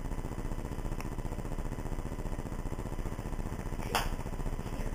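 Telephone line noise with a steady low hum while the call is on hold, a faint click about a second in and a louder crackle about four seconds in.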